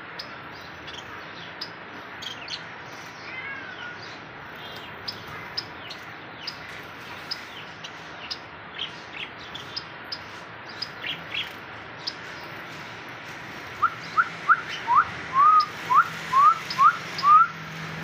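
Small caged finches chirping with short, high calls, joined about two-thirds of the way through by a louder run of about nine quick, slurred whistled notes.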